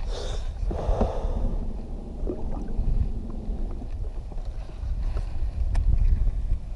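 Wind buffeting the microphone on a fishing boat: a steady low rumble, with a few small clicks and knocks.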